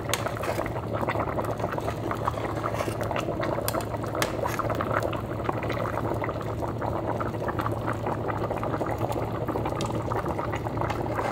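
Pot of green split-pea stew with cured pork and chorizo boiling, a steady dense bubbling, with a low steady hum underneath.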